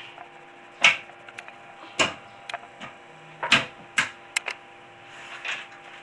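About six sharp clicks and knocks at uneven intervals, like small objects being handled and set down, over a faint steady hum.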